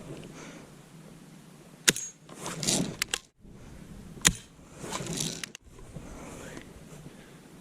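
Winchester pump air rifle fired twice, two sharp cracks about two and a half seconds apart. After each shot comes a short rushing stroke with small clicks, the gun being pumped for the next shot.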